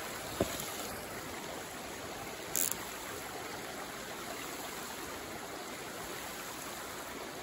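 Steady rushing of running water, with a faint tick about half a second in and a brief high hiss about two and a half seconds in.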